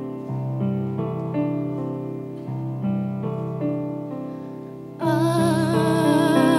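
Yamaha CP digital stage piano playing slow, held chords over changing bass notes. About five seconds in, a woman begins singing with vibrato over the piano, and the music gets louder.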